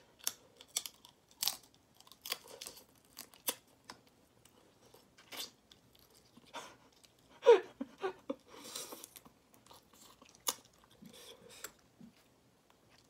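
Crayfish shells being cracked and peeled by hand, with chewing, heard close up as a string of short crunches and crackles; the loudest comes about seven and a half seconds in.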